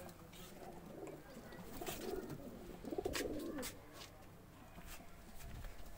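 Domestic pigeons cooing: a low, rolling coo from about a second and a half to three and a half seconds in, with scattered sharp clicks and knocks.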